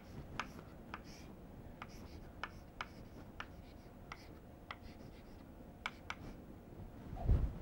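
Chalk writing on a blackboard: a string of short, sharp taps and scratches at irregular intervals as a formula is written. A brief low sound comes near the end.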